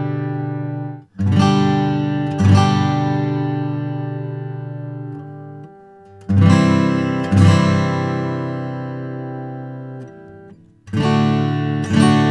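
Taylor 314 acoustic guitar with sapele back and sides being strummed. The chords come in pairs about a second apart, three times, and each is left to ring out and fade over several seconds.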